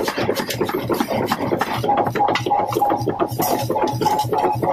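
A power forging hammer striking red-hot steel in a fast, even rhythm of sharp blows. From about two seconds in, a short ringing tone pulses along with the beat.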